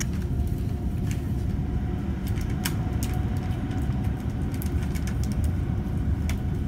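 Steady low rumble of a London Overground electric train in motion, heard from inside the carriage, with a faint steady hum and a scattering of sharp clicks.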